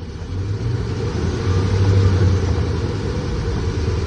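Hemi V8 engine running with its throttle held open, its speed rising over the first couple of seconds and then easing a little. The engine is warmed up with its thermostat open.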